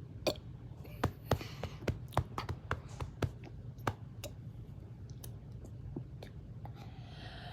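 A run of sharp, irregular clicks and taps, several a second at first and thinning out, over a low steady hum, with a breathy sound near the end.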